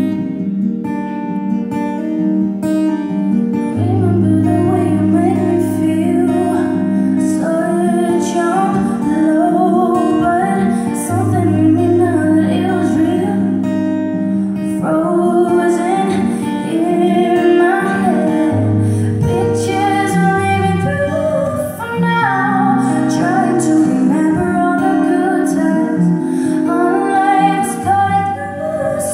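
Live acoustic guitar accompaniment with a woman singing over it. The voice comes in a few seconds in, after the guitar plays alone.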